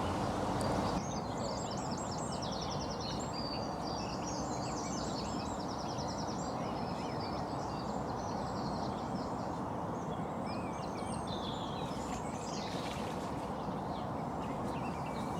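Small birds singing in quick repeated trills and chirps over a steady background hiss of outdoor noise.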